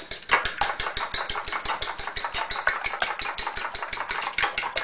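Two eggs being beaten by hand in a ceramic bowl: the utensil clicks against the bowl in a quick, even rhythm of about eight strokes a second.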